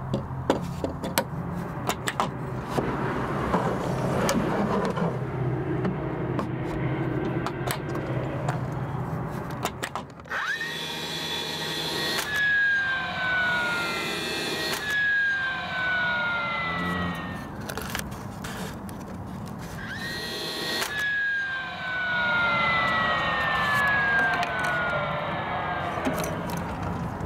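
Sharp clicks and knocks of tool and wood handling. Then, in two bouts, a DeWalt cordless brad nailer's motor whines and winds down in falling pitch as brads are fired into the plywood drawer face.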